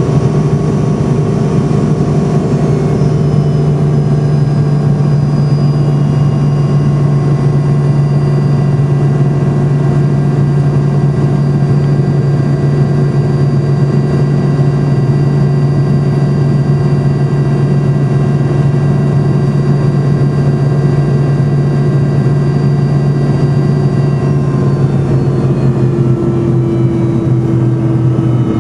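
Cabin drone of an MD-82's rear-mounted Pratt & Whitney JT8D turbofans in descent: a steady, loud low hum under several constant whining tones. About 24 seconds in, a few of the tones slide lower in pitch as the engines spool down.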